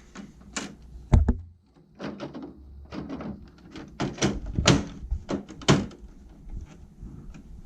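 Clicks and knocks of a plastic dehumidifier cabinet being handled, with one heavier thump about a second in.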